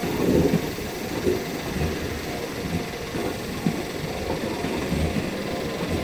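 Electric commuter train of the Tobu Isesaki Line rolling through a level crossing: a steady rumble of wheels on rails with uneven clacks.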